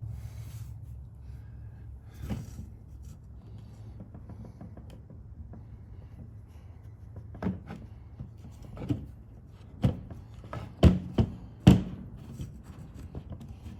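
Knocks and clicks of chainsaw parts being handled, coming in a loose string in the second half, over a steady low hum.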